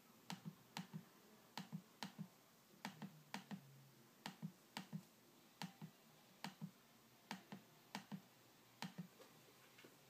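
A MacBook Pro Retina's trackpad clicked about a dozen times at an uneven pace. Each click is a close pair of sharp ticks.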